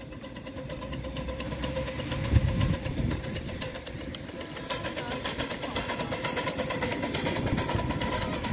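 Miniature steam locomotive running past close by, its exhaust chuffing in a quick, even beat and steam blowing off, over a low rumble of the wheels on the track. There is a single sharp knock a couple of seconds in.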